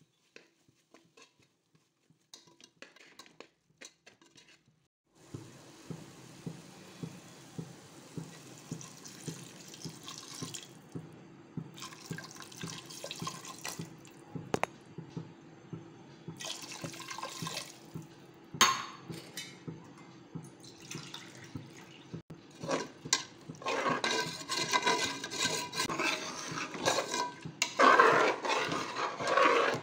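Spatula stirring a watery biryani masala in a pan: sloshing liquid and short scraping strokes. They start about five seconds in and grow louder and busier near the end.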